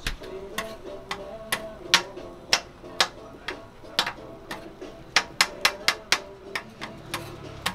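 Metal spatula chopping a slice of luncheon meat on a flat steel griddle: sharp clanks as the blade strikes the griddle plate, about two a second at first, then a quick run of five or six strikes about five seconds in.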